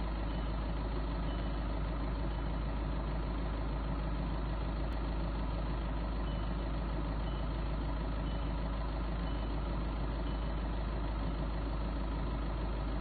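Vehicle engine running steadily: a constant low rumble with no change in pitch or level.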